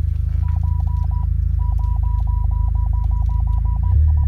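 Rear parking-sensor warning beeping rapidly, about five or six short beeps a second with one short gap, over the steady low drone of the Buick Regal GS's idling turbocharged four-cylinder heard from inside the cabin. The rapid beeping is the rear sensors going off, which the owner cannot explain.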